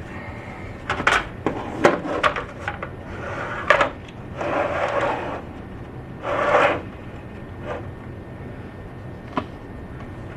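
Clicks and knocks of plastic parts being handled during the teardown of a Big Mouth Billy Bass, followed by two short hissing bursts and a last single click.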